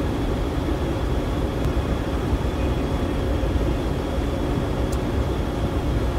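Steady road and engine noise inside a moving car's cabin, a constant low rumble.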